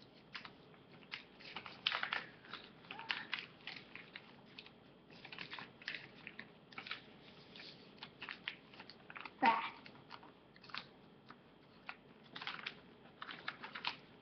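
A sheet of paper being folded and creased by hand for a paper airplane: irregular crinkling and rustling in short bursts, with a louder sound about nine and a half seconds in.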